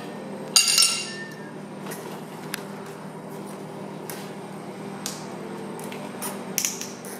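Sharp metallic clinks and taps, tools and steel parts knocking against the car's steel bodywork. The loudest is a ringing clank about a second in, with lighter taps scattered after it, over a steady low hum.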